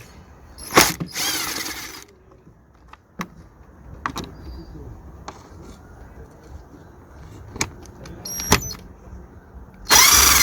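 Cordless drill-driver undoing the small 7 mm bolts on an air filter box cover. A sharp click is followed by about a second of motor whine, and a second short whine comes near the end, with small clicks and taps in between.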